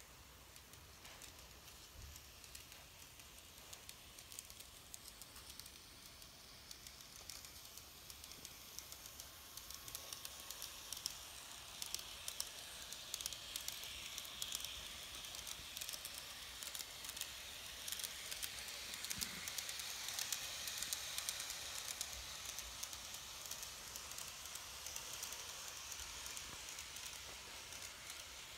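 N-gauge model train, a C11 steam locomotive hauling 24 series sleeper coaches, running on the track: a faint, fast clicking and rattling of small wheels over the rails with a light hiss. It grows louder in the middle as the coaches pass close by, then eases off near the end.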